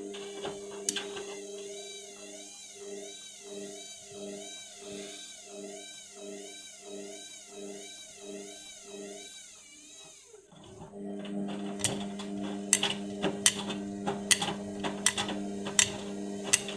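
Indesit washing machine motor running at low speed with the drum turning under an unbalanced load during the final spin: a whining hum that swells and warbles about one and a half times a second. About ten seconds in it drops away briefly, then starts again as a steadier hum with many sharp clicks and knocks.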